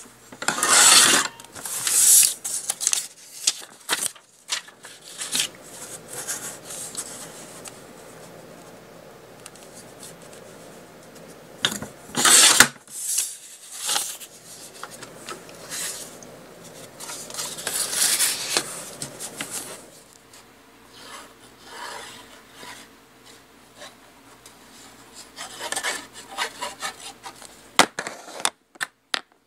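Paper trimmer's sliding cutter rasping along cardstock in several strokes, the loudest about a second in and about twelve seconds in, with paper sliding and rustling between them. A sharp click near the end.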